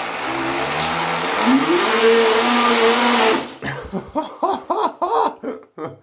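RC boat's electric motor and propeller running in a bathtub, churning the water; the motor's whine rises in pitch about a second and a half in, holds, then cuts off suddenly near the middle, leaving short broken sounds.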